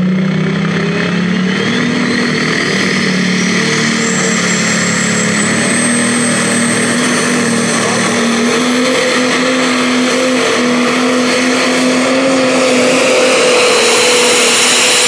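Pro Stock pulling tractor's turbocharged diesel engine running flat out under load as it pulls the sled. A high turbo whine climbs steeply over the first few seconds, then holds high and steady.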